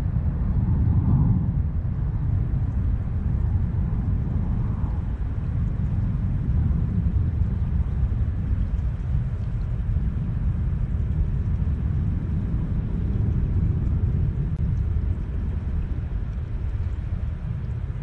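Steady low rumble with a faint hiss above it.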